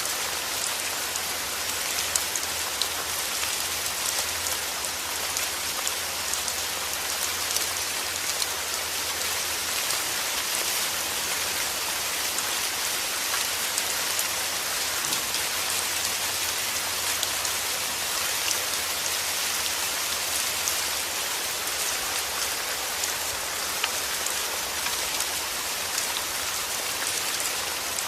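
Steady heavy rain falling on a surface, a dense hiss strongest in the highs, with many small drop ticks and spatters through it.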